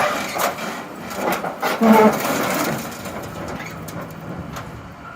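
Burnt sheet metal of a vehicle body crunching and creaking as it is pulled apart and crushed, with scattered knocks and a short squeal about two seconds in.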